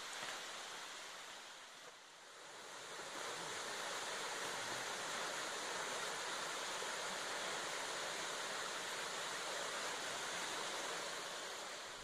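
Steady rush of running water, with a brief dip about two seconds in, then even and a little louder.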